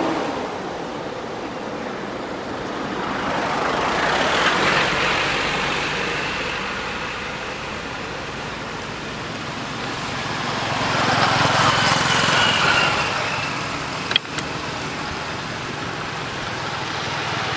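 Road traffic passing: two vehicles go by, each swelling and fading, one about four seconds in and one about eleven seconds in, over a steady traffic hum. A single sharp click comes shortly after the second one passes.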